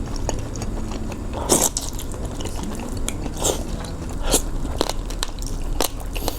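A person eating close to the microphone: chewing with several sharp, crunchy bites spread through, the loudest about a second and a half in and around three and a half seconds.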